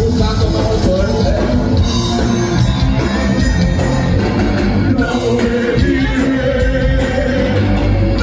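Punk rock band playing a song live at full volume, a dense, steady wall of band sound with held notes over a heavy low end.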